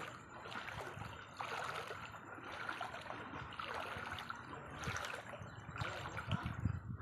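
Floodwater flowing in a steady rush, with a few louder low rumbles near the end.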